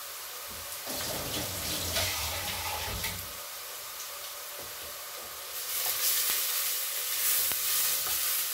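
Sofrito of onion, garlic and tomato sizzling in oil in a frying pan, the sizzle growing louder about five and a half seconds in.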